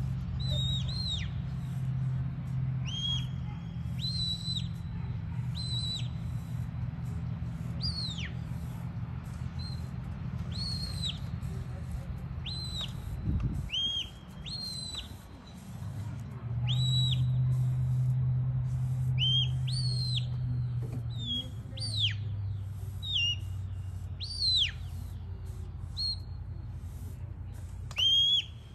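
Handler's shepherd's whistle giving commands to a working sheepdog: a string of short, sharp, high whistle notes, many rising then dropping in pitch, a second or two apart, over a low steady hum.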